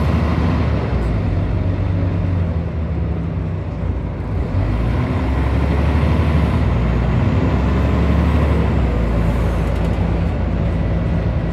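Scania DC9 9.0-litre diesel engine of a Scania N94UB bus, heard from inside the saloon, running steadily under way with a faint high whine that is typical of its ZF Ecomat automatic gearbox. The engine note dips briefly about four seconds in, then picks up again.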